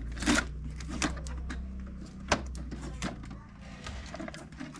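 Handling the plastic body of a new Epson L3210 printer while its blue packing pieces are pulled off: a few short plastic clicks and knocks, the sharpest about two seconds in, over a steady low hum.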